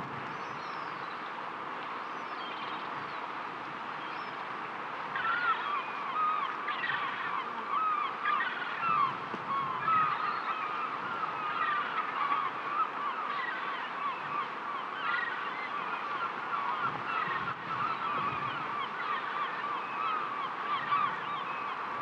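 A flock of birds calling, many short calls overlapping in a continuous chatter that starts about five seconds in, over a steady wash of the sea.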